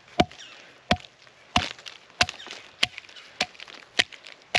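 A knife being batoned into a persimmon log: a heavy wooden baton strikes the blade's spine about eight times at a steady pace, each sharp knock with a brief ring, splitting chunks off the wood.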